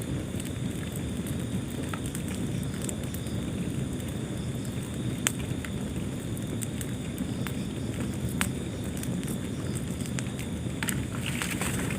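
Wood fire burning in a fireplace: a steady low rumble of flames with scattered sharp crackles and pops, and a quick run of crackles near the end.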